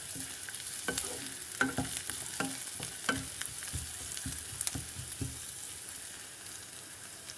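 Chopped onions and green chillies sizzling in a little oil in a non-stick kadai, stirred with a wooden spatula that knocks and scrapes against the pan about twice a second; the strokes die away in the last couple of seconds while the sizzle carries on.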